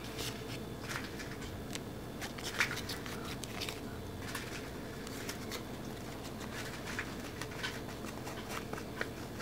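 Light scattered taps and scrapes of a plastic spoon against a plastic mold tray as thick cookie batter is spooned into its wells, over a faint steady hum.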